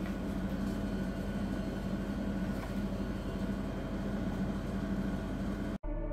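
Steady mechanical hum with a low held drone. It cuts off suddenly near the end, and a tune starts.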